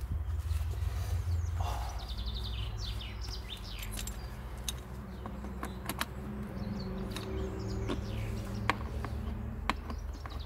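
Small birds chirping, over a steady low rumble, with a few sharp clicks in the second half.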